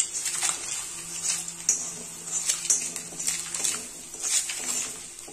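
Eggs frying in butter in an iron kadai: a steady faint sizzle, broken by irregular scrapes and taps of a steel spoon against the pan as the eggs are moved.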